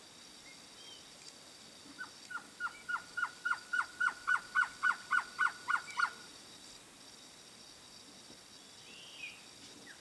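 Male blue-crowned trogon (Trogon curucui) singing: a run of about fifteen short, downward-slurred notes at about three a second, growing louder, starting about two seconds in and ending about six seconds in.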